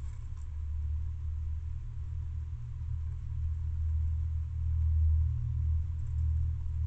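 Low rumble that swells and fades, loudest about five seconds in, with a faint steady high tone beneath it.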